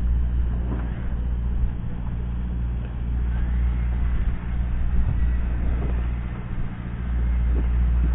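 Fishing boat's engine running steadily, a low droning hum.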